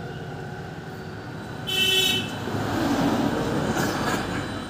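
A short, high-pitched vehicle horn toot about two seconds in, followed by the low rumble of passing traffic.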